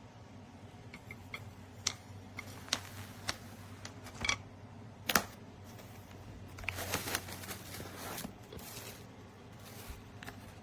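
Irregular light clicks and taps, the sharpest about five seconds in, followed by a few seconds of rustling, over a faint steady low hum.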